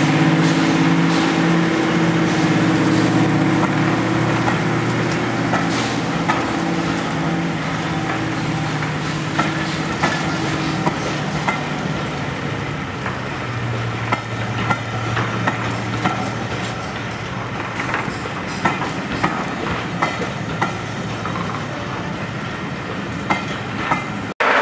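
A Class 55 Deltic diesel locomotive's twin Napier Deltic two-stroke engines drone under load as it pulls a passenger train away. The drone fades after about eleven seconds, and a string of sharp clicks follows as the coaches' wheels run over the rail joints.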